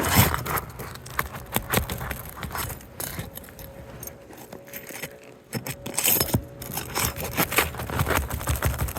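Nails being worked loose from roof shingles with a metal tool: irregular scraping with many sharp metallic clicks, easing off briefly a little past the middle.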